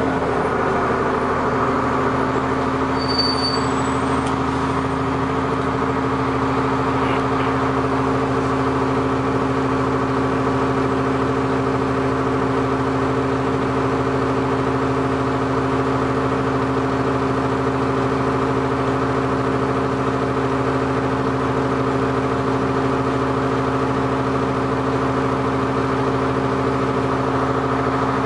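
New Flyer D40LF diesel transit bus engine idling steadily at a standstill, its pitch unchanging.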